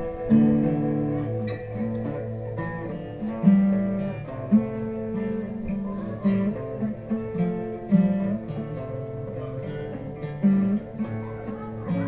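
Guitar music: single plucked notes sounding one after another over a low held note.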